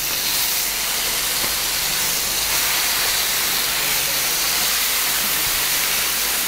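Marinated chicken drumsticks sizzling steadily in a hot grill pan as more pieces are laid in.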